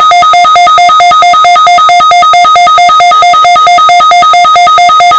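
Weather-radio warning alarm sounding for a weekly test: a loud electronic beeping tone pulsing rapidly and evenly, about six beeps a second.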